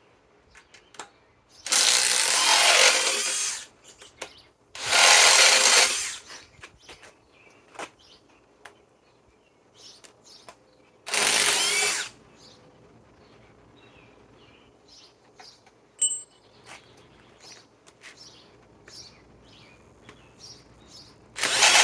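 RIDGID R8721 half-inch 18-volt right angle impact wrench hammering in short runs as it loosens bolts: about two seconds, then about a second and a half, then about a second, with another run starting near the end. Small clicks and handling knocks come between the runs.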